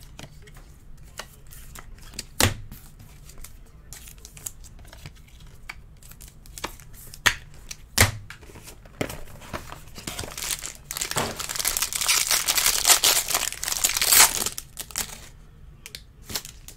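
Baseball cards and plastic sleeves being handled, with scattered sharp clicks and snaps. From about ten seconds in, a few seconds of loud crinkling and tearing as the foil wrapper of a card pack is ripped open.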